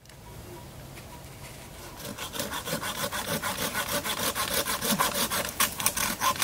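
Orange-handled hand pruning saw cutting through a wooden branch, in steady back-and-forth strokes at about three a second; the strokes grow louder about two seconds in.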